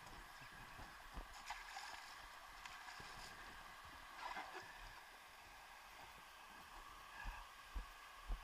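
Faint, steady wash of water, with a few dull low thumps near the end.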